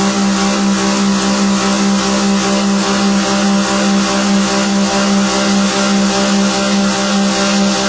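CNC machine running steadily while machining a workpiece: a constant mid-pitched hum with a dense hiss over it.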